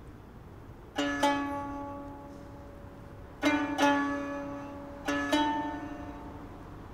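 A plucked string instrument playing sparse notes in pairs, three pairs about two seconds apart, each note ringing on and fading.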